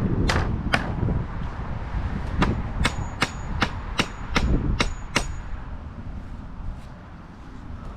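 Hammer blows: a few strikes at the start, then a steady run of about eight evenly spaced blows, about two and a half a second, with a slight metallic ring.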